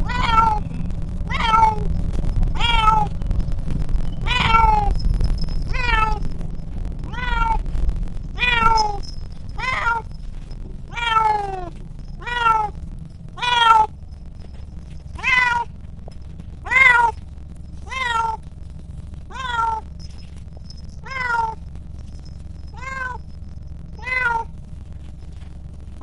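A cat meowing insistently in protest, about twenty short meows with a falling pitch, roughly one every second and a bit. The low rumble of the bus runs underneath.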